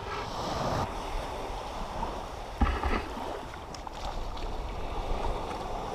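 Small waves washing in at the edge of a sandy beach, with wind rumbling on the microphone; a short louder sound about halfway through.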